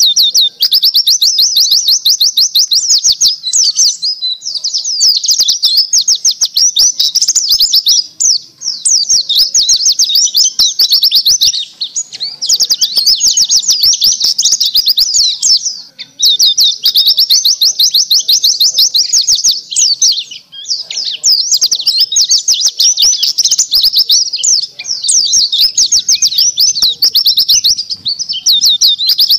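White-eye (pleci 'dakun') singing a fast, unbroken twittering song of high chirps, with a short pause every few seconds. This is the full, non-stop song that bird keepers call 'gacor'.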